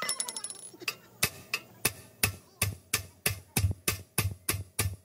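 A steel hammer strikes at the tie rod end on a car's steering knuckle in a steady series of sharp blows, about three a second, knocking the joint loose. The first blow rings like struck metal.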